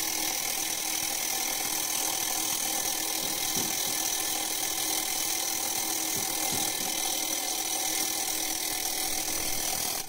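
Fire alarm bell with its gong removed, the striker mechanism running with a steady buzz while the panel is in alarm. It cuts off suddenly at the very end.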